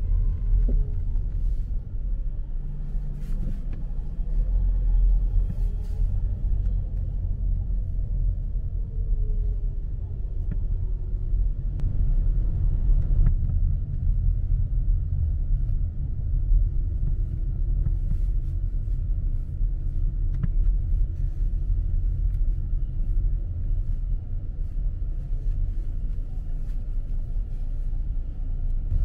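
Steady low rumble of city traffic and road noise, with faint passing-engine tones drifting up and down.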